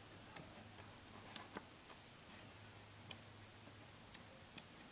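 Near silence: a steady low hum with a handful of faint, sharp clicks at uneven intervals.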